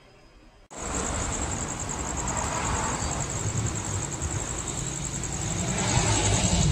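Night insects trilling in a steady high chorus over a low rumble, which grows slowly louder toward the end. The sound starts suddenly about a second in.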